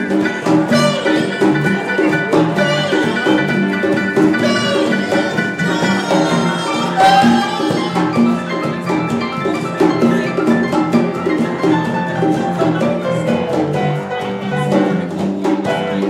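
Live jam-session band playing a steady groove, with hand drums and stringed instruments, guitar among them, under bright pitched melody lines.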